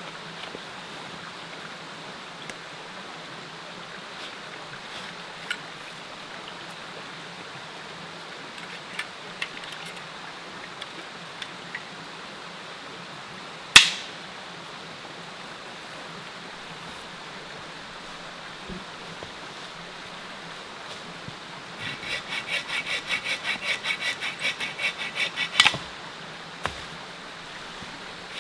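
A mountain creek rushing steadily. About halfway there is one sharp crack, and near the end a hand saw cuts through wood in quick even strokes, about five a second, for about four seconds.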